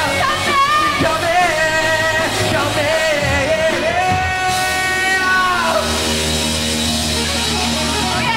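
Live rock band (electric guitars, bass, drums) playing with a male and a female singer singing together into microphones. A long held sung note comes about four to six seconds in; after it the voices stop and the band holds a steady chord.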